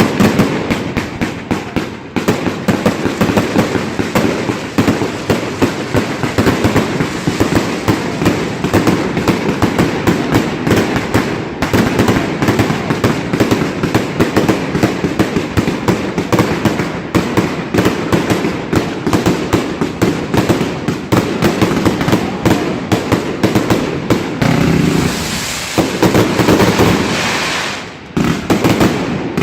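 Fireworks going off in a dense, rapid barrage of bangs and crackles, many per second, easing briefly near the end.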